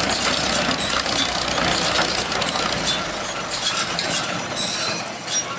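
Old John Deere 216 wire-tie baler, driven by its four-cylinder Wisconsin engine, running with a dense mechanical clatter and clinking. The engine's low rumble dies away about two-thirds of the way through, and the sound turns quieter.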